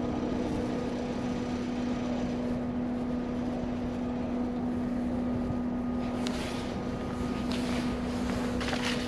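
A steady mechanical hum holding one constant low tone, with a few faint clicks and rustles in the last few seconds.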